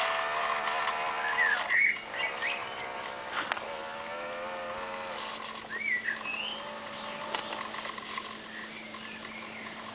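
Small electric drive motor of a radio-controlled model ship whining with a wavering pitch, fading out by about halfway through as the boat moves away. Birds chirp several times.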